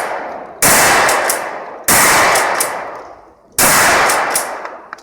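Three shots from a 12-gauge pump-action shotgun, about a second or more apart, each a sudden loud blast fading away over about a second, with the tail of a previous shot at the start.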